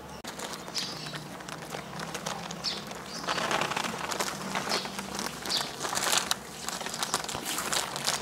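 Plastic snack packets crinkling as hands rummage through them and pull one open: irregular crinkles and rustles, busiest from about three seconds in.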